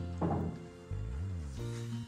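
Background music with held bass notes. There is a short hit just after the start, and about a second in the notes slide in pitch and back.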